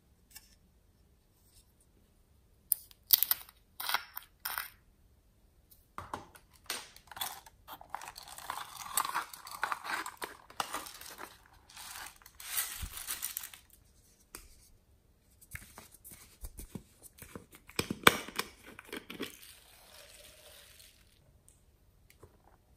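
Small plastic toy containers being handled: a few sharp clicks and snaps as lids are opened, then several seconds of crackling as sprinkles and beads are poured out of them over slime, with another loud click later on.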